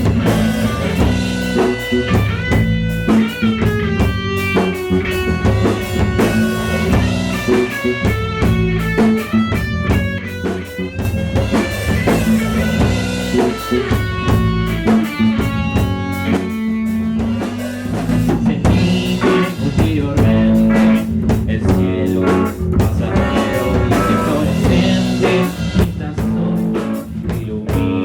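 A rock band playing an instrumental passage live in the studio room, with guitar and drum kit. The guitar plays a melodic line with bent notes.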